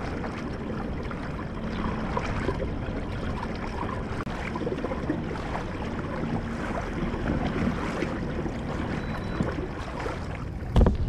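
Water lapping against a kayak hull, with wind on the microphone, and a single loud knock near the end.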